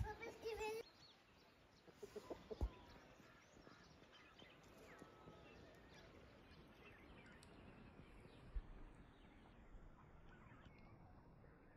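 Domestic chickens clucking faintly, with a short pitched hen call at the very start. Two brief low thumps, about two and a half seconds and eight and a half seconds in.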